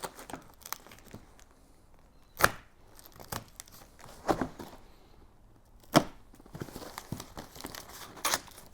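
A cardboard product box being worked open by hand: tearing and rustling of the packaging, with several sharp snaps or knocks spaced irregularly.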